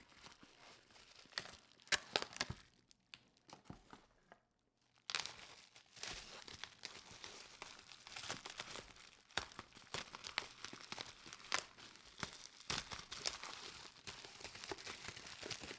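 Packaging being unwrapped by hand: crinkling and tearing of packing material and handling of cardboard, with sharp clicks and rustles. It stops for about a second around four seconds in, then the rustling goes on steadily.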